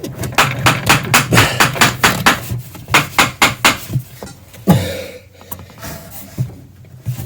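Rapid, even tapping, like light hammering, at about five knocks a second, pausing for a moment after about four and a half seconds, then a few more knocks.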